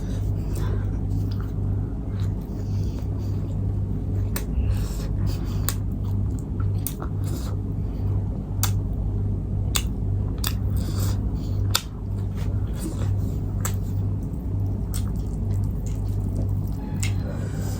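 Close-miked eating sounds: many sharp, wet mouth clicks and smacks from chewing, scattered irregularly over a steady low hum.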